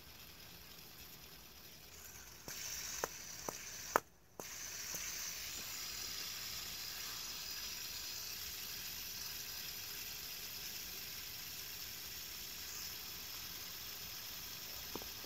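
Fidget spinner whirring on its bearing as it spins between the fingers, a steady soft hiss. A few light clicks come about three to four seconds in.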